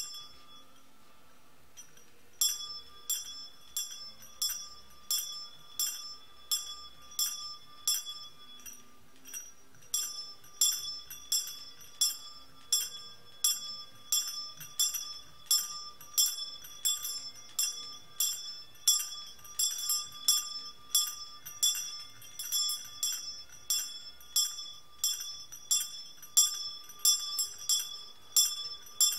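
A small bell struck over and over, about two strikes a second, each strike ringing briefly with a clear high tone. One lone strike comes at the very start; the steady striking begins about two seconds in and breaks off once for about a second near the middle.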